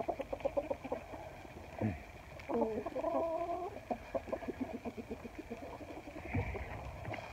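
Chickens clucking in quick runs of short clucks, with one longer, drawn-out hen call about two and a half seconds in.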